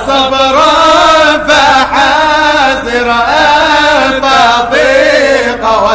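Arabic devotional chant (inshad) praising the Prophet Muhammad: a voice holds and bends long sung notes through a drawn-out phrase, with brief breaths between.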